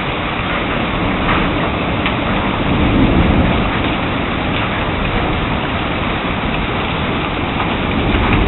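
Heavy thunderstorm rain and wind outdoors, a loud, steady, dense noise with a few faint ticks.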